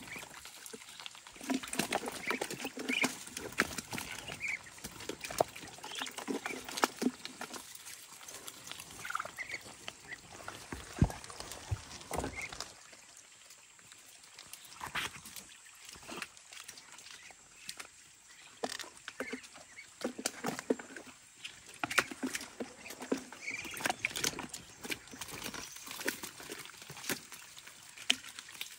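A flock of white Muscovy ducks jostling at the water's edge: soft low calls and brief higher calls mixed with many short clicks and rustles, with a quieter stretch in the middle.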